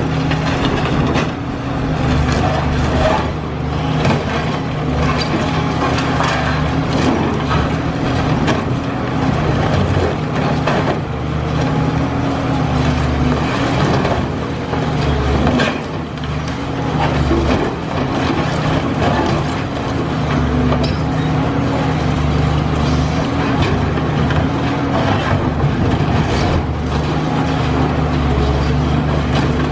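Cat high-reach demolition excavator's diesel engine running steadily under load, its pitch dipping and recovering now and then, with irregular knocks and crunches from concrete and debris being pulled down.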